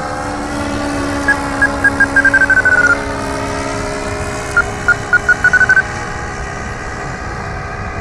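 Small propeller-driven aircraft's engine droning overhead, its pitch sliding slowly as it flies past. A run of short high beeps that speed up as they go sounds twice over it.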